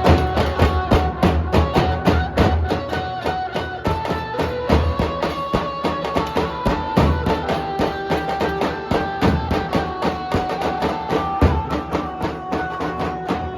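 Nasik dhol drumming: deep, heavy dhol beats under a fast, steady rhythm of sharp strokes, with held melody notes that change pitch over the top.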